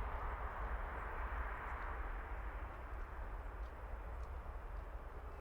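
Jet airliner engine noise slowly fading away as the aircraft recedes, over a steady low rumble.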